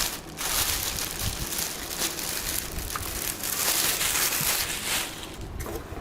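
Packaging rustling and crinkling as a cordless stick vacuum is pulled out of its box and unwrapped, with a few light knocks.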